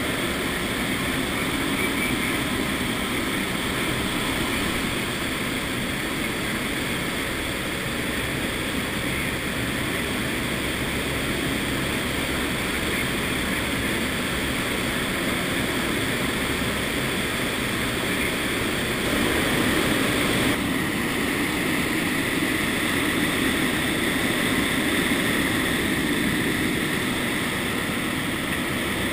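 Steady noise inside the cargo hold of a C-130 Hercules turboprop in flight with its rear ramp open: the engines and propellers running, mixed with air rushing past the open ramp. It gets a little louder about two-thirds of the way through.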